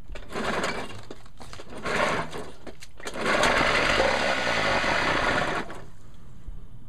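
Nissan 3.5 hp two-stroke outboard being pull-started. It sputters briefly twice, then runs for about two and a half seconds with a wavering pitch and dies. It runs but won't stay running: a sign that fuel is not getting through the clogged carburetor.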